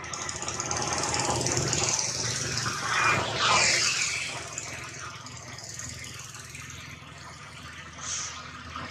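A motor engine droning in the background, growing louder to a peak about three to four seconds in, then fading away.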